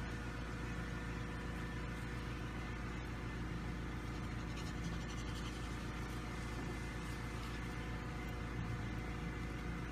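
A steady low mechanical hum with an even hiss, unchanging throughout.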